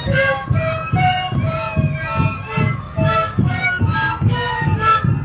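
Jula jula music: a band of breathy Andean panpipes playing short interlocking notes over a steady drum beat of about three strokes a second.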